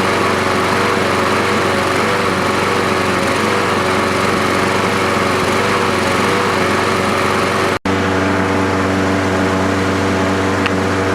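Troy-Bilt walk-behind lawn mower's small engine running steadily at high speed with an even pitch, its carburetor freshly cleaned. The sound cuts out for an instant about eight seconds in, then carries on the same.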